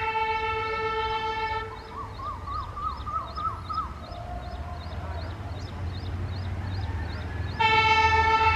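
Horn of twin WDM-3A Alco diesel locomotives. A long blast sounds first, then a wavering, warbling horn note for about two seconds, and a second loud blast starts near the end. The low rumble of the diesel engines runs underneath.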